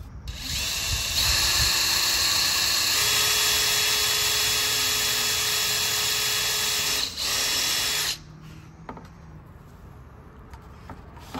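Cordless drill running a small pilot bit through the plastic dash tray. The motor whine steps up in speed about three seconds in and dips briefly near seven seconds. The drill stops about eight seconds in.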